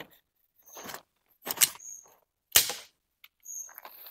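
Plastic tarp sheet being pulled taut over a shelter frame: three sharp snaps about a second apart, the third the loudest, then a softer crinkling rustle near the end.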